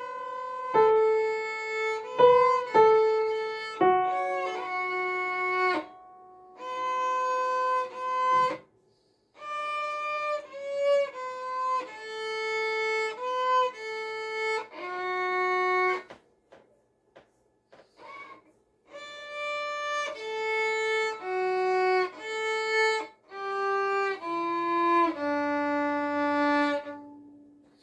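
A young child playing a violin with the bow: a simple tune of separate held notes, with a pause of about three seconds midway, stepping down to a long low closing note near the end.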